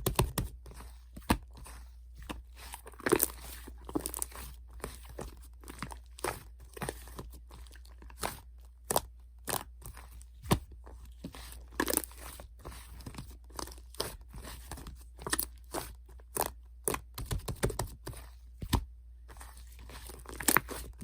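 Irregular crisp crunching and crackling clicks, a few a second, over a low steady hum.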